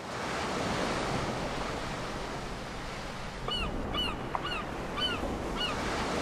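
Sea surf washing steadily, fading in at the start, with a bird calling in short repeated cries, about six of them in the second half.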